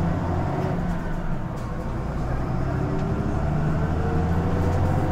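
Mitsubishi Fuso Aero Midi (TKG-MK27FH) city bus's diesel engine heard from inside the passenger cabin, pulling away from a stop. Its note climbs in the second half as the bus gathers speed.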